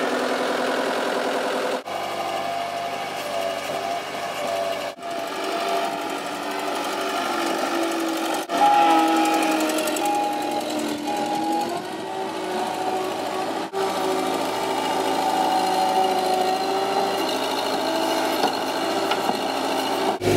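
Hyundai HSL650-7 skid steer loader's diesel engine running as the machine drives and digs. The sound changes abruptly several times.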